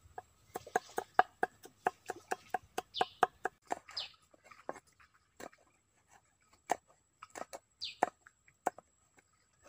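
A cleaver chopping on a thick wooden chopping block. A quick run of chops, about four or five a second, lasts the first few seconds, then slows to scattered single chops.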